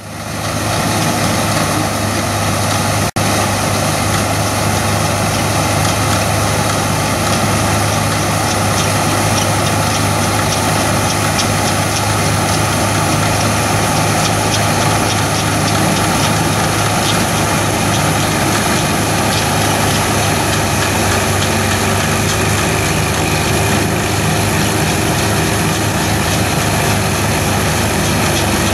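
Old Gleaner combine running steadily while harvesting oats: engine drone with the threshing machinery's rattle. The sound drops out for an instant about three seconds in.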